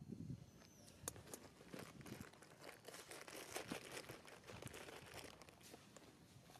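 Faint crackling and rustling: a dense run of small clicks and crinkles.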